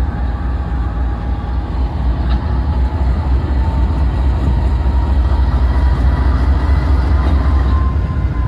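A train locomotive running, a loud, steady low rumble.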